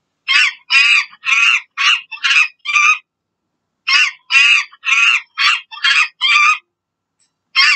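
A monkey's high-pitched screeching calls in quick runs, about two a second: six in a row, a short pause, six more, then one last call near the end.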